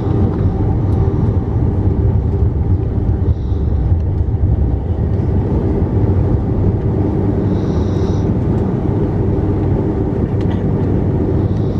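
Steady low rumble heard inside the cabin of an Airbus A330-300, its Rolls-Royce Trent 772B engines running.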